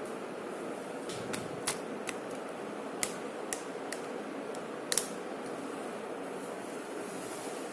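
A handful of short, sharp clicks and taps, the loudest pair about five seconds in, over a steady hiss of room noise.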